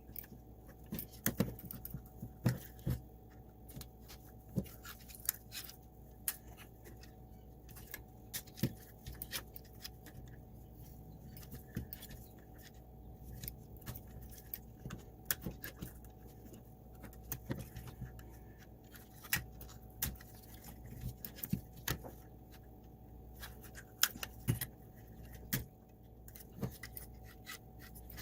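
Hands working on small plastic parts of a Roomba robot vacuum: irregular clicks, taps and light scrapes, over a faint steady hum.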